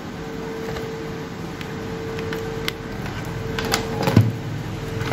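Light clicks and knocks of a laptop power adapter, its plug and cables being handled on a workbench, the loudest about four seconds in, over a steady background hum.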